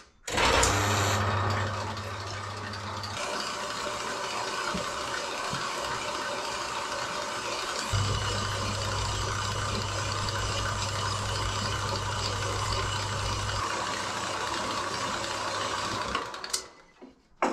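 Small metal-cutting band saw starting up and cutting through rusty steel box-section tube: a steady cutting noise over the motor's hum, which stops about a second before the end.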